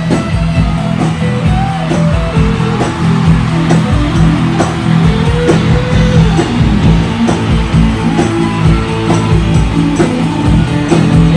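Rock music in an instrumental passage: guitar over a steady drum beat, with no singing.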